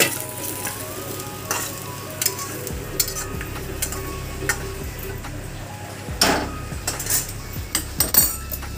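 Metal spatula scraping freshly roasted okra out of an iron kadhai onto a steel plate: repeated scrapes and clinks of metal on metal, the loudest about six and eight seconds in, over a light sizzle of the hot oil.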